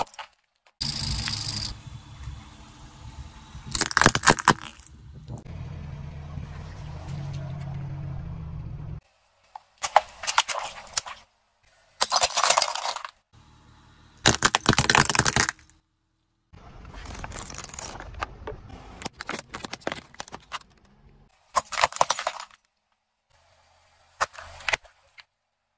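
A car tyre crushing brittle plastic toys and crumbly objects: a run of about six short crunching and cracking bursts, each cut off abruptly. A low steady rumble runs under the first third.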